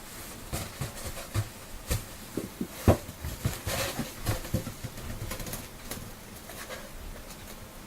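Irregular soft taps and thumps, the loudest about three seconds in.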